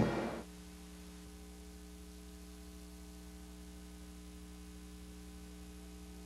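Steady electrical mains hum with faint hiss in the gap between commercials on a VHS transfer. The tail of a sung jingle cuts off in the first half second.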